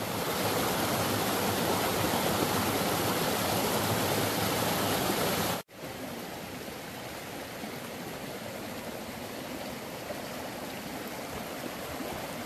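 Steady rush of water from a waterfall and creek. It is louder at first, cuts out abruptly for an instant about five and a half seconds in, then carries on a little quieter.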